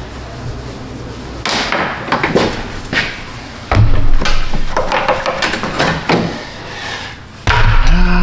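Plastic grille trim being pried off a pickup's front end: scattered clicks, snaps and knocks of plastic tabs and a pry tool, with two heavy thumps, one about four seconds in and one near the end.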